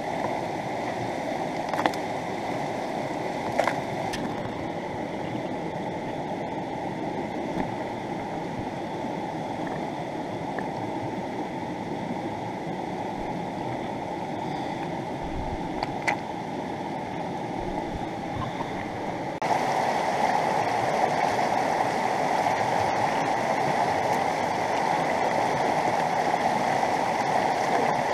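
Rushing river water, a steady roar of flowing water, with a few faint clicks and knocks. About two-thirds of the way through, the water noise becomes abruptly louder.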